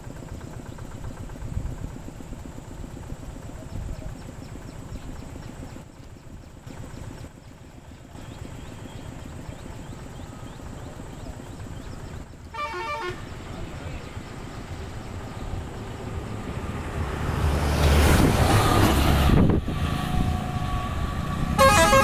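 A passenger bus passing close by, its engine and road noise rising loud about three-quarters of the way in, with a pulsing, beeping horn sounding briefly about halfway and again near the end.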